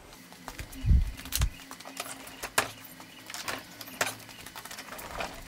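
Heavy wooden cabinet of an antique pump organ being swung around on a concrete floor: two heavy low thumps about a second in, then scattered knocks and scrapes as it is shifted.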